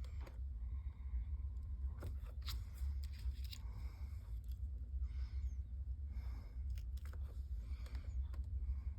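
Small clicks and short rustles of paper and card being handled at a craft table, over a steady low hum.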